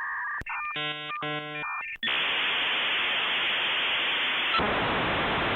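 Dial-up modem connection sound: steady electronic tones, two short bursts of chord-like beeps, then a long, even hiss of handshake static that changes character about four and a half seconds in.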